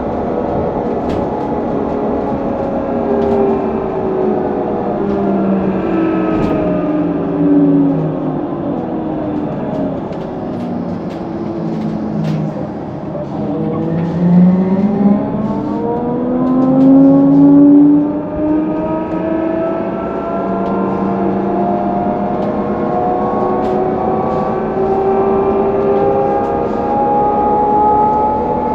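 HESS Swisstrolley 4 trolleybus's electric traction drive whining: several pitches slide steadily down as the bus slows to a near stop about halfway through, then climb again as it pulls away and speeds up.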